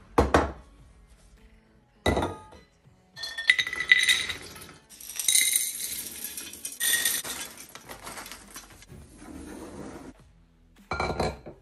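Mixed nuts poured from a glass jar rattle into small metal bowls, with sharp clinks of glass and metal. The pour rattles for several seconds through the middle, and single clinks come just after the start, about two seconds in, and near the end.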